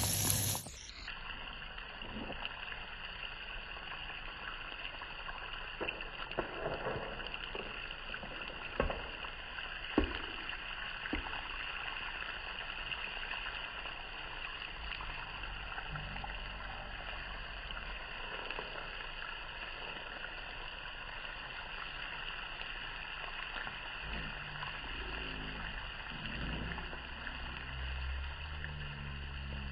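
Eggs frying in butter in a pan: a steady, muffled sizzle, with a few light clicks of a utensil against the pan between about six and eleven seconds in.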